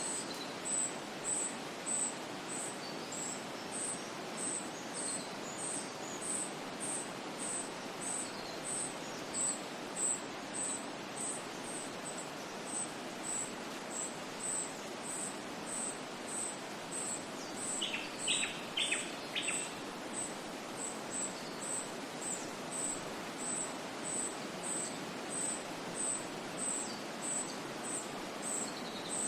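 Nature ambience: a steady, even hiss of background noise under a high, short chirp that repeats regularly about one and a half to two times a second, with a few quick bird notes about eighteen seconds in.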